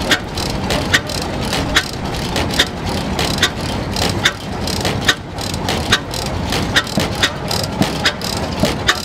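Vintage stationary engine running, with a sharp metallic click repeating evenly a little faster than once a second over a steady mechanical clatter.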